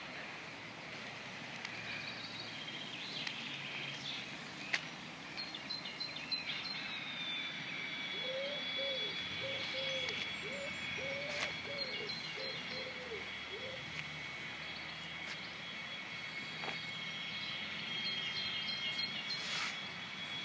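Outdoor background noise with two steady high-pitched whining tones, scattered short bird chirps, and a quick run of about eight low repeated calls about eight seconds in.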